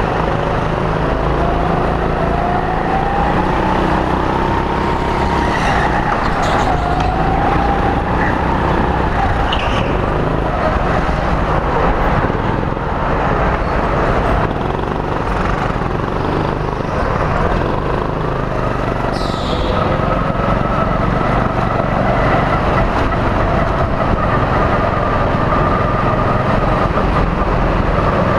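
Go-kart running at speed, heard close up from the kart itself: a steady motor noise whose pitch rises and falls as it speeds up and slows through the corners, with a few brief high squeals.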